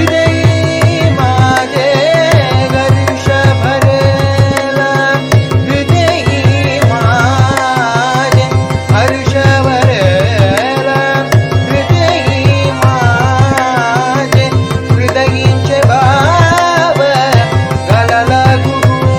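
Indian devotional bhajan music: a voice sings wavering, ornamented melodic lines over sustained harmonium chords and a steady, quick rhythm of mridangam strokes.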